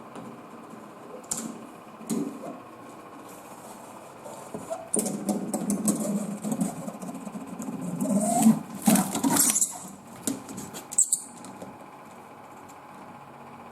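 A cat scrabbling and scuffling while hunting a house gecko: irregular rustling, scratching and clicking noises, busiest in the middle, with a short rising tone about eight seconds in.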